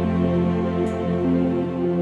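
Background music: slow, gentle new-age style with sustained tones and a low held note.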